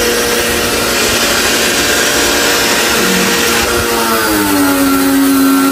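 A machine's electric motor running loudly and steadily while an air conditioner is being serviced and cleaned. About four seconds in its pitch drops and settles lower, as if the motor has taken on load.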